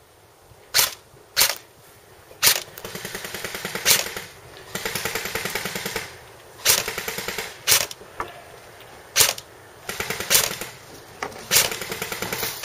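Airsoft guns firing: sharp single cracks about every second, mixed with rapid full-auto bursts of a second or two from electric airsoft rifles.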